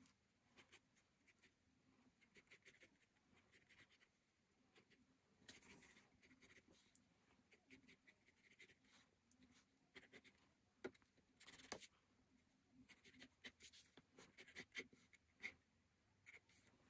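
Pencil drawing on sketchbook paper: faint, quick strokes of the lead across the page, with longer, stronger strokes about five and a half seconds in and again near twelve seconds.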